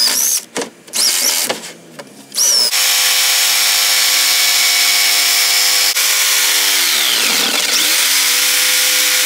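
Cordless drill boring through an MDF panel in a few short bursts, its pitch rising and falling. About three seconds in a jigsaw starts and runs steadily, cutting the panel; its speed sags and picks up again about seven seconds in.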